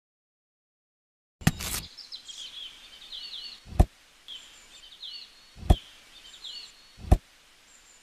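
Birds chirping in short gliding calls, broken by three dull thuds about two seconds apart as small fruit bunches are dropped. A sharp click comes about a second and a half in.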